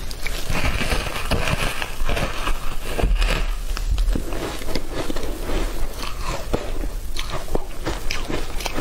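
Close-miked eating sounds: biting into and chewing a soft cake thickly coated in matcha powder, with many quick mouth clicks and smacks.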